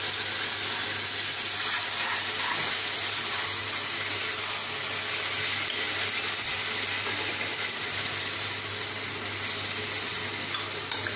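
Water sizzling and bubbling after being poured into a hot kadai of spiced taro stolons and prawns, a steady hiss that eases slightly near the end.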